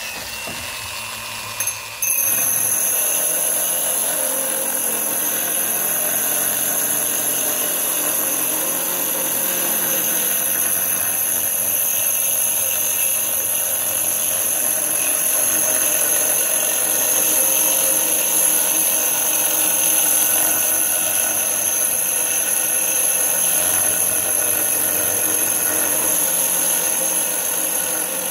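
Angle grinder fitted with a diamond core bit, drilling a hole into a stone countertop: a steady high whine that jumps louder about two seconds in and then holds steady.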